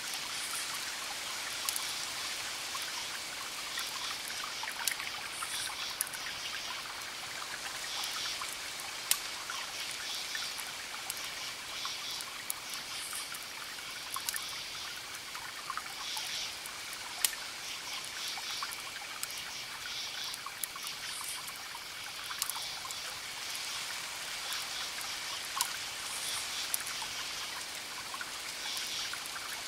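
Wood fire crackling: a steady hiss broken by scattered sharp pops. Short bursts of high chirping recur in the background.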